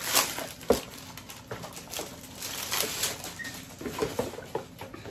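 Packaging rustling and crinkling as a faux-leather envelope portfolio is pulled from its wrapping and handled, with scattered light clicks and a sharp knock about a second in.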